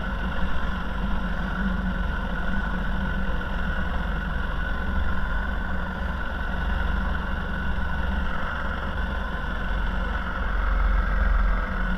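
A small motor running steadily as the kayak moves along, with water and wind rumble on the microphone.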